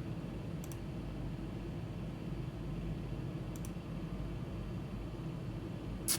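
Steady low hum of room and computer noise with a few short faint clicks, one about a second in, one near the middle and a sharper one near the end.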